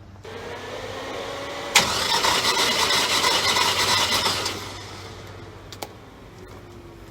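Starter cranking a V8 engine with a compression gauge fitted, without the engine firing. A rising whine begins, then about a second and a half later a sharp click, and the cranking runs loud for nearly three seconds before it stops. The gauge then reads 70 to 80 psi on cylinder 6, low compression from a worn, high-mileage engine.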